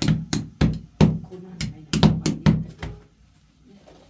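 A quick run of about ten hard knocks, roughly three a second, that stops about three seconds in.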